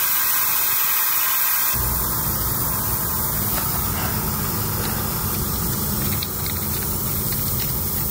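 Steady hiss of compressed air escaping from a puncture in a heavily inflated truck tire during a failed attempt to seat a tire plug. A low rumble joins about two seconds in.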